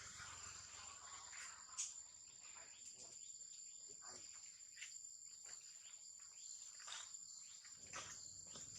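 Faint, steady high-pitched drone of insects, with scattered soft clicks and rustles over it; the sharpest click comes about two seconds in.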